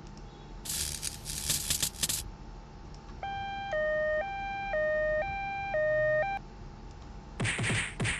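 A short burst of rough hissing noise, then a two-tone hi-lo siren switching between two pitches about once a second for around three seconds, then a cluster of quick falling sweeps near the end: synthetic sound effects.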